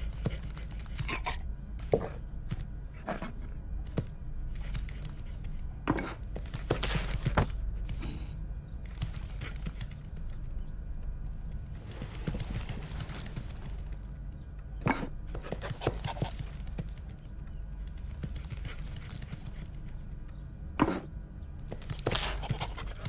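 Irregular knocks and taps, some sharp and single, some in short clusters, over a steady low hum.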